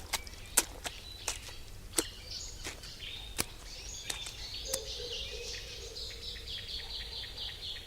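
Birds chirping and singing over a low, steady outdoor background, with a run of sharp clicks about every two-thirds of a second in the first half. The birdsong grows into quick repeated notes in the second half.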